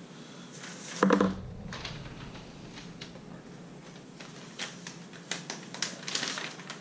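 Hands handling PC parts and cables inside a computer case: one loud clunk with a brief ring about a second in, then a run of small sharp clicks and taps near the end.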